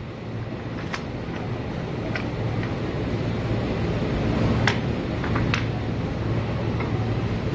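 Steady low hum and hiss with a few sharp clicks and clinks, about four, as the parts of a handheld pipe-welding heater tool are handled and fitted on a table.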